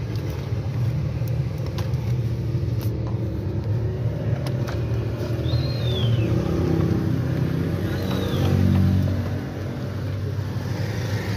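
A running engine's steady low rumble that swells briefly around two-thirds of the way through, with a few faint clicks and two short high squeaks that fall in pitch.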